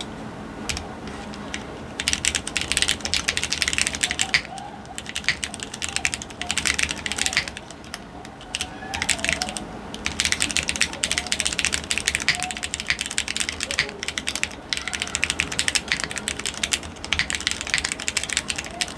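Typing on a Geonworks F1-8X mechanical keyboard with Cherry MX Hyperglide Black linear switches. Rapid keystroke clacks come in runs, starting about two seconds in, with short breaks around five and nine seconds in.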